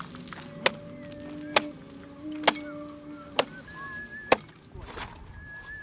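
Axe blade striking thick ice, chopping it out: five sharp blows about a second apart, stopping near the end.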